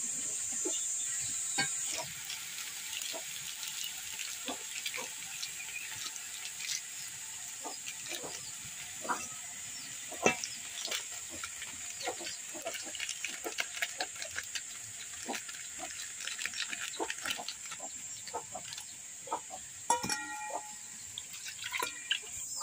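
Oil sizzling in a wok over a wood fire for the first two seconds, then the hiss drops away. After that come many short wet squelches and clicks as a hand squeezes and mixes a yellow spice paste in a steel bowl, with water poured in near the end.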